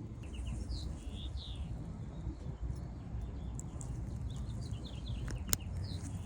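Small birds chirping in short, repeated downward-sweeping calls over a low steady rumble, with one sharp click about five and a half seconds in.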